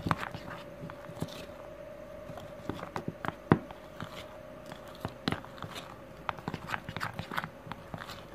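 Metal spoon stirring thick cocoa cake batter in a small bowl: irregular clicks and scrapes of the spoon against the bowl. A faint steady hum runs underneath.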